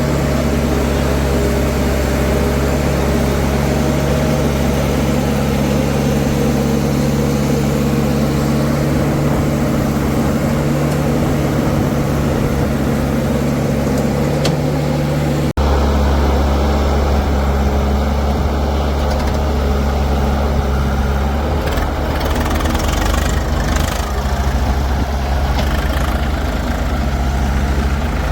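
Heavy machine's diesel engine running steadily at a low, even speed, close by. There is an abrupt cut about halfway through, after which the engine carries on with a heavier low rumble and a few faint knocks.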